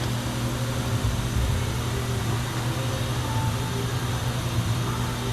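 A steady low mechanical hum, like a running engine or machine.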